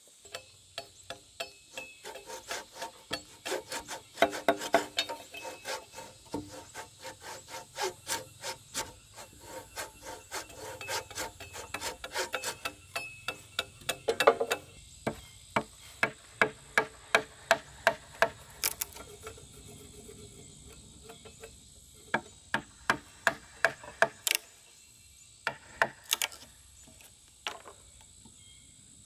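Wood chisel struck repeatedly with a wooden mallet, cutting a joint into a squared log beam: runs of sharp knocks, about two to three a second, with short pauses between runs.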